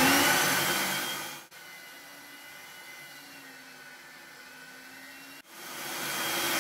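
Electric meat grinder motor running as beef chunks are fed through its coarse 8 mm plate. It starts with a short rising whine and then runs steadily, breaking off abruptly twice: quieter in the middle stretch, louder again near the end.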